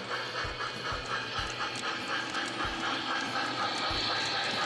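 Model steam locomotive sound from the Proto-Sound 3.0 system of an MTH Premier O-scale Pennsylvania J1 2-10-4: steady chuffing at about four beats a second, with a steady hiss rising about three seconds in.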